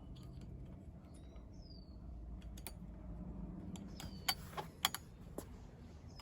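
A few sharp metallic clicks and taps from a hand tool tightening the screws on a steering-wheel quick-release hub. They come over a low steady background, with a few faint, short high chirps.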